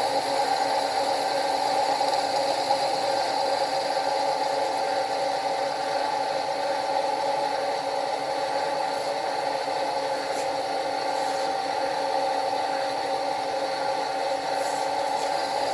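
Milling machine running steadily with its cutter spinning in a right-angle head against the boiler's end plate, giving a constant mechanical hum with a higher whine over it.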